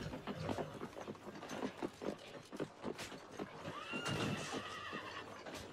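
Horse hooves clip-clopping in a quick, uneven patter as the horse is ridden, with a horse whinnying about four seconds in.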